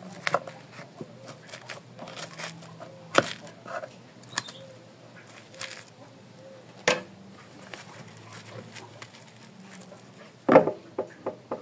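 A thin metal blade scraping and prying old wax out of a wooden jataí hive box, with scattered clicks and scrapes and a few sharper knocks against the wood. The wax is being loosened and collected for reuse.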